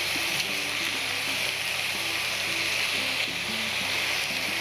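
Mutton frying with spices in oil in an open pressure cooker on high heat, a steady sizzle. Background music with a simple melody plays under it.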